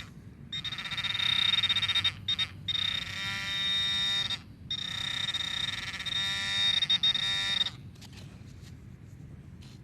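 XP Deus metal detector giving a loud, buzzy electronic target tone over a deep target that reads 84. The tone holds for about seven seconds, broken twice briefly, and stops near the end.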